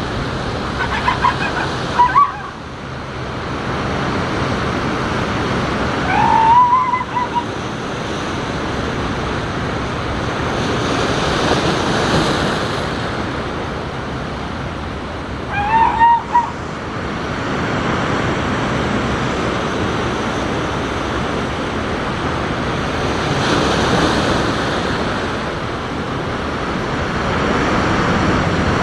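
Ocean surf washing steadily onto a rocky cobble shore, swelling louder every several seconds. Brief high-pitched calls cut through it a few times, near the start, about six seconds in and about sixteen seconds in.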